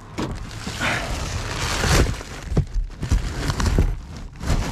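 Rummaging through rubbish inside a dumpster: cardboard, plastic sheeting and debris rustling and scraping, with a few short knocks.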